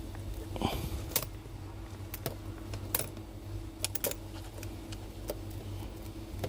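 Scattered small clicks and taps, about a dozen at uneven intervals, from handling the MacBook Air's display assembly and chassis as the old screen is worked off its hinges, over a low steady hum.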